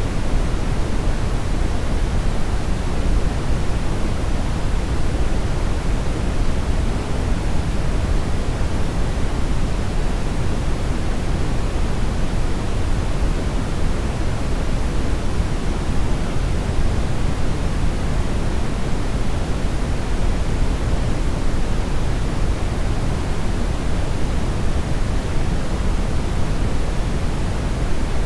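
Steady brown noise: an even, unchanging rush of noise with no tones or events, strongest in the lows and fading toward the highs.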